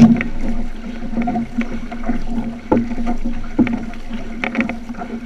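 Outrigger canoe moving through the water, with paddle strokes catching and splashing about once a second. Water rushes along the hull, and a steady hum runs underneath.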